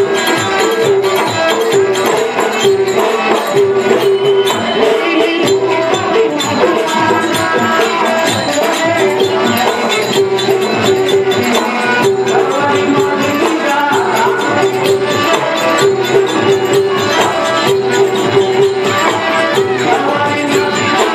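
Kannada bayalata folk-theatre music accompanying a dance: a hand drum keeps a steady beat under a short melodic phrase that repeats over and over, with jingling small percussion on top.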